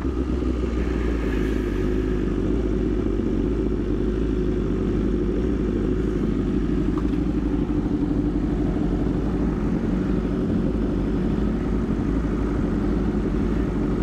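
BMW S1000RR inline-four engine running steadily at low revs, close to the microphone, with no revving up or down.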